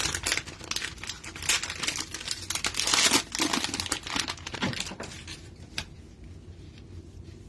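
Cellophane wrapper of a trading-card cello pack crinkling and tearing as the pack is opened, loudest about three seconds in and dying down after about five seconds.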